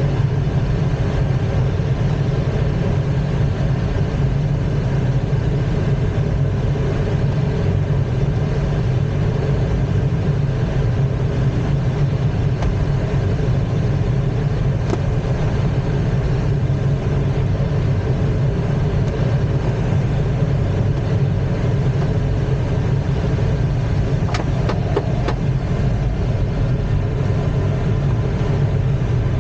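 Steady drone and rush of air inside an ASK-21 two-seat glider's cockpit while it climbs on aerotow, with the tow plane's engine droning ahead.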